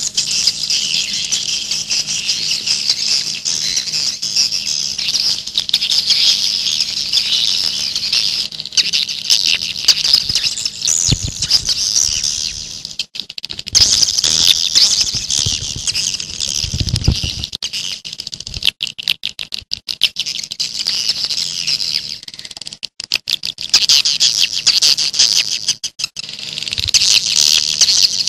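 Dense, continuous twittering of swiftlets, a call recording of the kind played to lure wild swiftlets to nest. It breaks off briefly twice, with a couple of low rumbles underneath.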